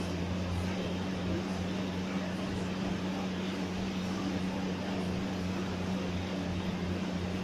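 Assault air bike's fan whirring steadily as the rider pedals, a constant rush of air over a low steady hum.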